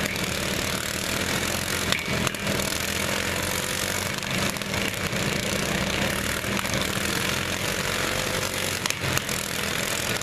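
Several riding lawn mower engines running at once in a steady drone, with a few sharp knocks of mowers hitting each other.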